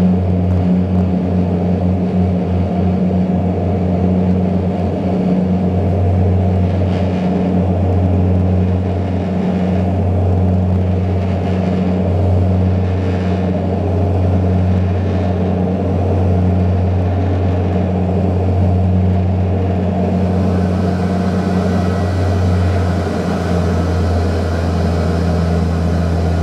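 Cabin drone of a Saab 340B's twin General Electric CT7 turboprops and four-bladed propellers during the climb after takeoff: a steady low propeller hum with a higher overtone and a rushing hiss over it. The tone shifts slightly about twenty seconds in.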